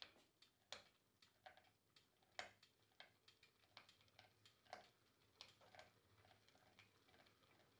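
Faint, irregular ticks and clicks, a few a second, from a hanging Porsche 911 flywheel spinning on a wobbly welded shaft in its bearings as a falling weight unwinds the string from the axle.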